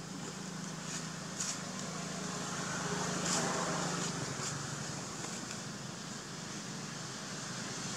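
Outdoor background of a steady, low engine hum that fades away about halfway through, with a few faint, short, high clicks.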